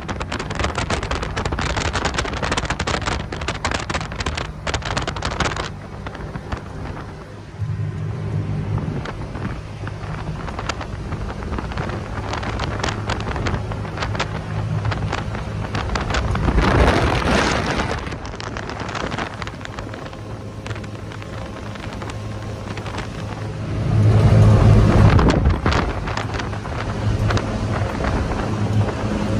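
Speedboat engine running at speed under the rush of water and wind buffeting the microphone. The engine note strengthens about eight seconds in, a surge of water noise comes midway, and both are loudest a few seconds before the end.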